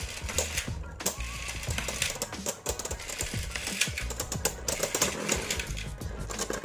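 Background music with a steady low beat, over rapid, irregular clicking and rattling.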